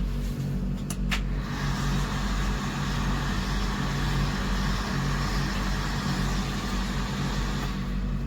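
modunful 2000 W wall-mounted automatic hand dryer running: a steady motor hum under rushing air, the air noise swelling after the first second or so and easing near the end.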